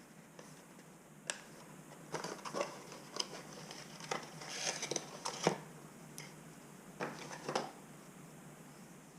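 Hands unpacking a GoPro Hero 8 Black camera and its packaging: scattered sharp clicks and taps with brief rustles, in three short clusters after a single click about a second in.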